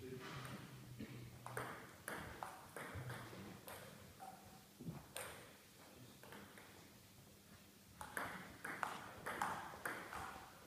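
Table tennis ball clicking off the bats and table: a few scattered clicks at first, then a quick rally from about eight seconds in.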